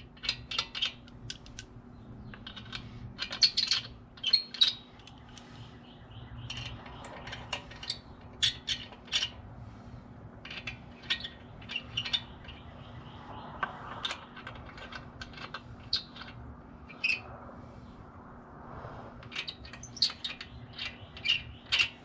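Lug nuts being threaded onto a truck wheel's studs by hand: irregular light metallic clicks and rattles.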